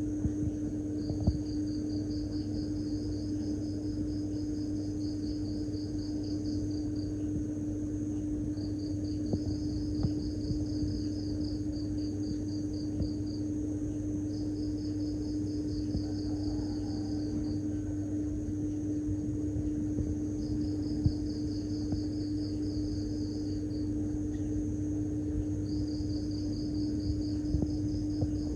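Insects trilling outdoors, a high pulsed trill in repeated bouts of a few seconds with short pauses between, over a steady low hum, with a few faint clicks.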